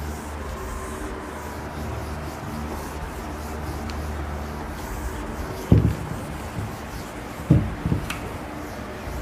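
A duster rubbed across a whiteboard, erasing the writing, over a steady low hum. Three dull knocks against the board, one about six seconds in and two more close together a couple of seconds later, are the loudest sounds.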